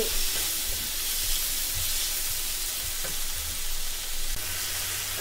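Chopped onions and tomatoes sizzling steadily in a nonstick frying pan, with a few light scrapes of a wooden spatula stirring them.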